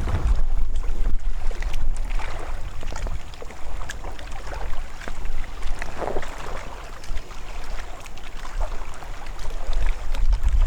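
Wind buffeting the microphone on a kayak out on open water, a low rumble with scattered light clicks and knocks from the boat and gear.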